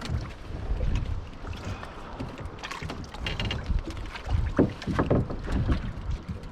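Wind rumbling on the microphone aboard a small boat, with scattered knocks and handling noises.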